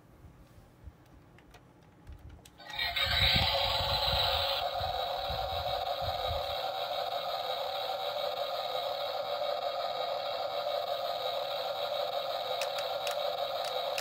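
Low handling thumps, then from about three seconds in a steady electronic drone of several held tones, with low rumbling under it for the next few seconds.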